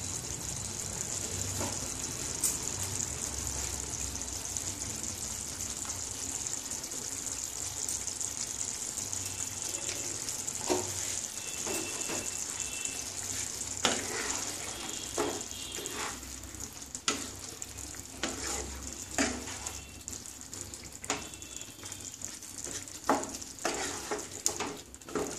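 Yogurt cauliflower curry sizzling in a non-stick kadai, a steady hiss. From about halfway on, a wooden spatula stirs the curry and knocks against the pan, the knocks coming more often near the end.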